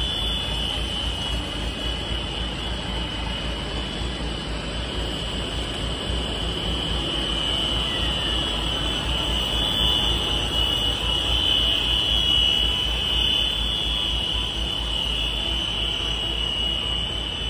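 A PP-film plywood coating production line running: a steady machine drone with a constant high-pitched whine, swelling slightly about ten seconds in.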